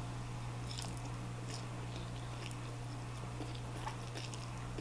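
Faint chewing and wet mouth sounds of a person eating a mouthful of udon noodles, with a few soft clicks.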